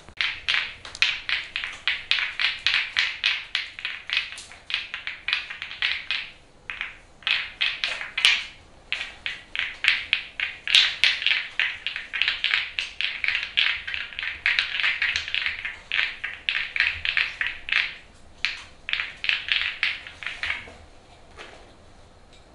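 Hands massaging a bare forearm, rubbing and working the skin in quick rhythmic strokes, about three or four a second. The strokes pause briefly twice and stop near the end.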